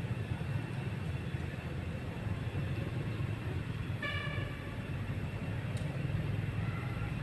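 Steady low outdoor rumble, with a short horn-like toot about four seconds in.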